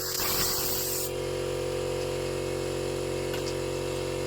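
A motor-driven air blower running with a steady hum, blowing dirt off a leaf blower's engine housing: a rush of air for about the first second, then the motor hum alone.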